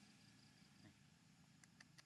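Near silence: faint background hum with a faint, steady high tone and two soft clicks near the end.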